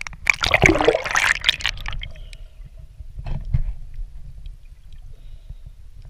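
Water splashing and sloshing right at the camera as a swimmer strokes through the water, loudest in the first two seconds, with two short splashes about three seconds in. After that only a faint, dull low rumble as the camera sits underwater.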